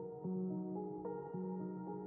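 Gentle instrumental background music: held notes changing two or three times a second over a repeating low note.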